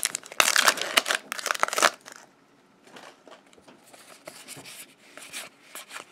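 Shiny Magic: The Gathering booster pack wrapper crinkling loudly as it is torn open, for about two seconds. Then quieter rustling as the cards are slid out and handled.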